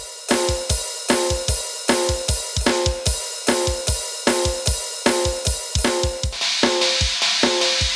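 Yamaha PSR-S770 arranger keyboard playing a drum rhythm: a deep kick drum in a fast, busy pattern with hi-hats and a short repeated pitched note. About six seconds in, the cymbals grow louder.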